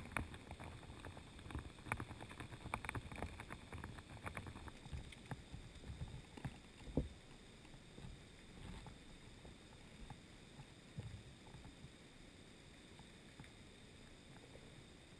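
Faint, muffled underwater sound picked up by a camera sitting on a gravelly riverbed in current: small clicks and knocks over the first few seconds, one thump about seven seconds in, then a low steady hiss.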